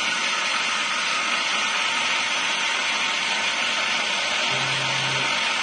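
Drilling machine running a 4 mm carbide end mill: a steady motor whine and hiss. From about four and a half seconds a low hum comes and goes in pulses.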